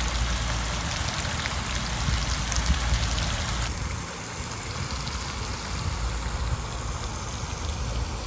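Water from a cascade fountain spilling over a stone wall edge into a shallow stone pool: a steady rushing splash, a little quieter from about four seconds in.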